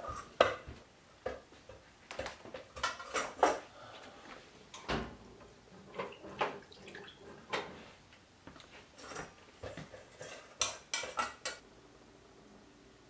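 Metal cookware and utensils being handled: irregular clanks and clinks of a stainless mixing bowl, pots and kitchen utensils, several with a short metallic ring.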